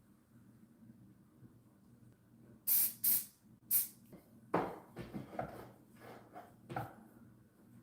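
Three short sprays from an aerosol of super-glue (CA) activator, followed by several light knocks and taps of wooden pieces being handled.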